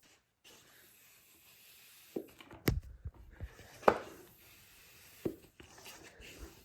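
A few sharp, irregular clicks and knocks of objects being handled over a faint hiss, the loudest about four seconds in.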